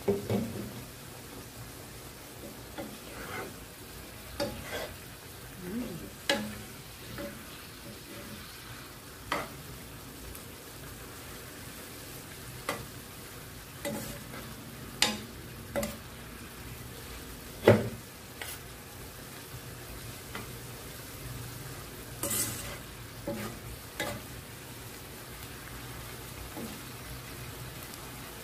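Pansit canton noodles with pork sizzling and simmering in a stone-coated nonstick wok as the noodles soak up the broth, tossed with a wooden spatula and a metal spoon. Under a steady sizzle come irregular scrapes and knocks of the utensils against the pan, the loudest about two-thirds of the way through.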